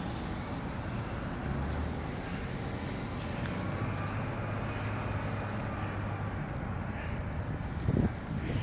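Street traffic noise: a steady hum of vehicles, with a short, louder sound about eight seconds in.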